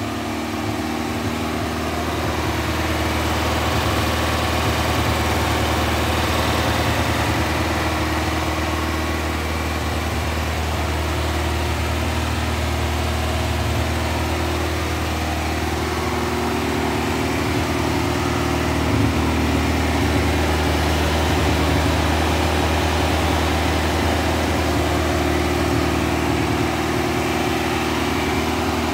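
Freshly built air-cooled VW Type 1 flat-four, a 2054cc stroker, running steadily about 18 minutes into its cam break-in run.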